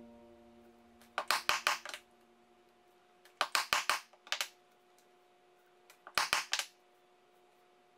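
Three short runs of sharp clicks, four or five quick clicks in each, spaced a couple of seconds apart: a hand-held diamond stitching chisel being pressed and stepped along leather on a plastic cutting board to mark stitch holes.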